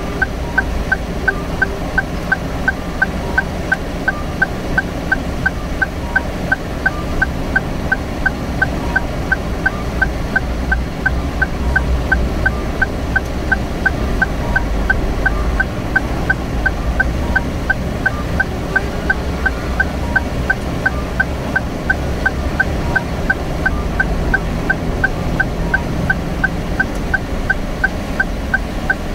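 Turn-signal indicator of a Daihatsu Move Custom ticking at an even pace inside the cabin while the car waits to turn left, over the low hum of the idling engine.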